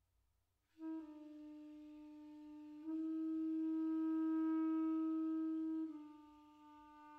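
Solo clarinet playing one long, soft held note that begins about a second in, swells louder about three seconds in and falls back again about six seconds in.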